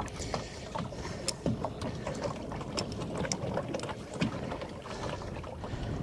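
Water slapping against the hull of a small boat, with irregular light knocks and clicks.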